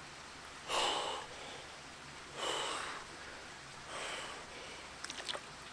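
A man's sharp, heavy breaths, three of them about a second and a half apart, as he sits shoulder-deep in freezing water: cold-shock breathing. A few faint clicks near the end.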